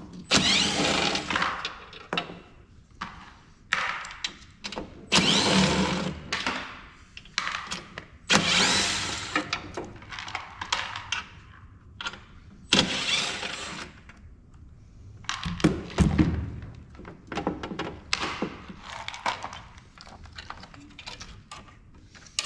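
Metal and plastic parts of a thermal printer being worked apart by hand during a teardown: five scraping, clattering bursts of a second or two each, with scattered clicks and knocks between them.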